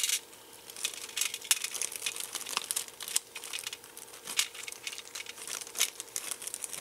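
Bag of kit parts crinkling and rustling as it is handled, with irregular small crackles and clicks.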